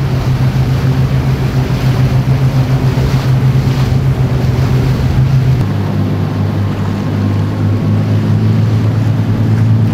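Motorboat engine droning steadily under wind and water noise; its note steps down lower a little past halfway.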